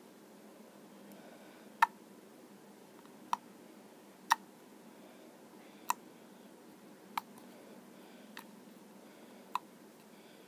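Clear-glue slime poked with a fingertip, making sharp little clicks as trapped air pops, about seven of them a second or so apart with quiet between.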